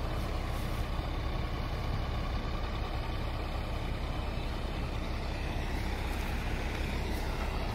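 Diesel engines running steadily: a John Deere front-loader tractor working beside a semi truck as it stacks round hay bales onto the truck's flatbed trailer.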